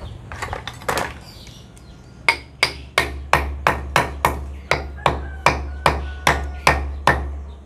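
A claw hammer striking the top of a wooden pestle standing in a stone mortar, a few light taps and then an even run of some fifteen sharp knocks at about three a second, driving the pestle down to pound the mortar's contents.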